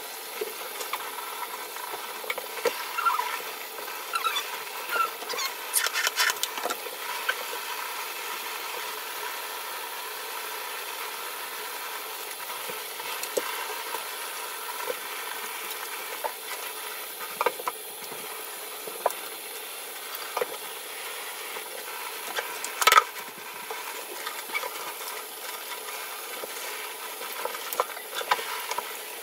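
Shower spray running steadily, water hissing and splashing on skin and the stall, with scattered small splashes and clicks as someone washes. A single sharp knock about 23 seconds in.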